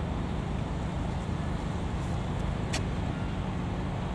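Steady low rumble of street traffic. A single brief high click sounds about two-thirds of the way through.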